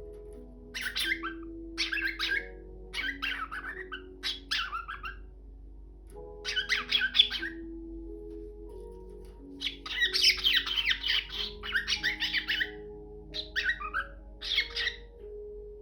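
Cockatiel squawking in short repeated bursts, with one longer run of rapid calls about ten seconds in, over soft background music with a slow melody.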